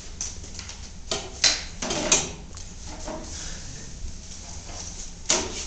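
A few short knocks and clicks with faint rustling between them, like objects being picked up and set down.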